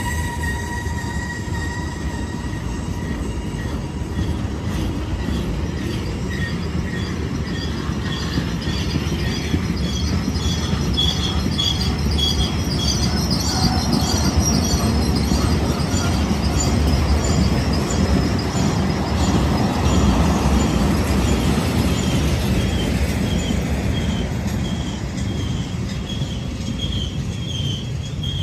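BNSF freight train rolling past: a steady low rumble of the cars on the rails, with the wheels squealing in short, repeated high squeaks that come and go, most from about ten seconds in and again near the end.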